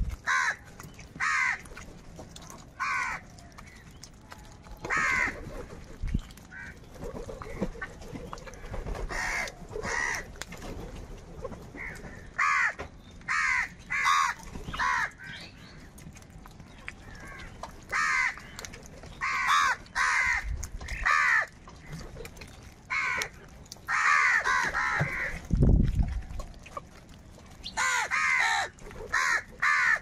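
A flock of house crows cawing, with harsh single caws and short quick runs of caws every second or so, some overlapping from several birds. A dull low thump comes about three-quarters of the way through.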